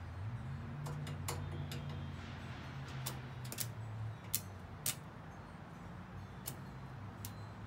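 Campbell Hausfeld 115-volt stick welder burning a 1/16-inch rod on its low setting against a wrought iron railing: scattered sharp crackling pops from the arc over a low hum. The hum rises in pitch about half a second in and settles back after about five seconds, and the loudest pops come near the middle.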